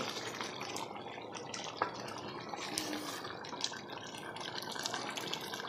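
Chicken, potatoes and masala sizzling and bubbling in a metal pot while being stirred with a spoon, with scattered light clicks over a steady frying hiss.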